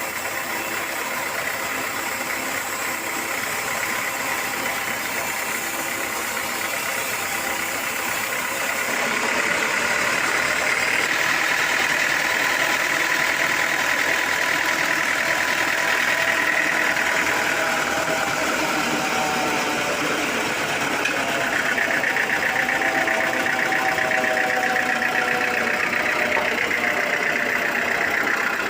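Sawmill machinery running steadily, a motor-driven saw with a high whine, growing louder about ten seconds in.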